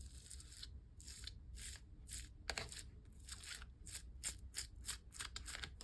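Slime being pulled and handled, giving a faint, irregular run of short sticky crackles, about two or three a second.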